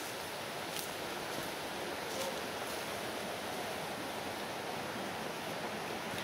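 Steady rushing of a forest creek, with a few faint crackles.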